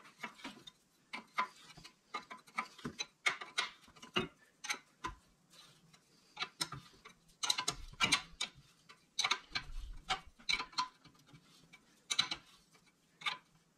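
Hand ratchet wrench clicking in short, irregular runs as small bolts are run down and tightened by hand; the clicks come thickest a little past the middle.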